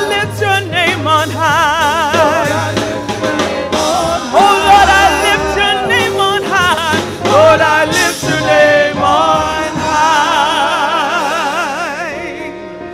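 A woman singing a gospel solo with wide vibrato and long held, ornamented notes, over electronic keyboard accompaniment. The music fades out near the end.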